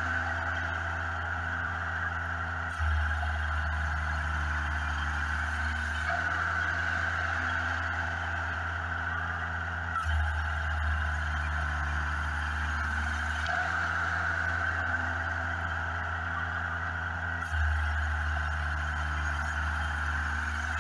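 Engine-driven homemade band sawmill running, its blade cutting through a log. The sound is steady but shifts abruptly in tone and level every few seconds.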